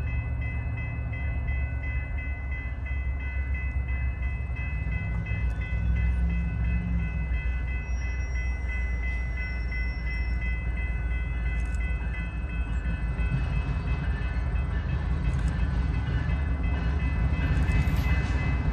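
Approaching diesel freight locomotive: a low engine rumble under a long, steady horn that fades about twelve seconds in.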